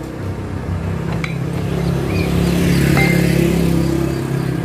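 A road vehicle's engine passing close by, growing to its loudest about three seconds in and then easing off, with two short clicks along the way.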